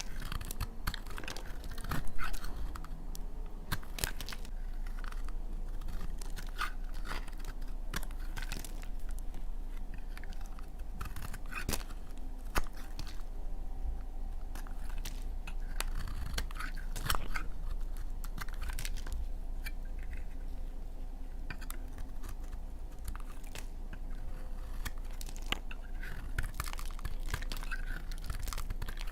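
Knife cutting through dry laundry soap, a run of irregular crunching and crackling strokes, the loudest about two seconds in. A faint steady low hum runs underneath.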